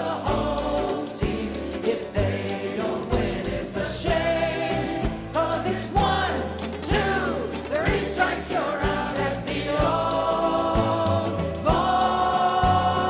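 Music: singing voices, choir-like, over a stepping bass line and a steady beat.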